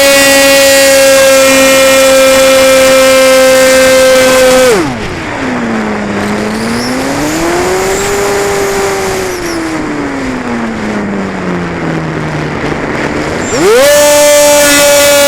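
Model Cessna 185's motor and propeller heard close up from on board, running steadily at high throttle with a high whine. About five seconds in it is throttled back: the pitch drops sharply, then wanders low for several seconds with rushing wind. Near the end it is opened up again and the pitch jumps back to full.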